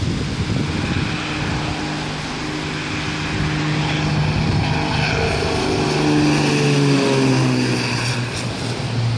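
A twin-engine propeller aircraft passing close by, its engine and propeller drone swelling to a peak and then dropping in pitch as it goes past.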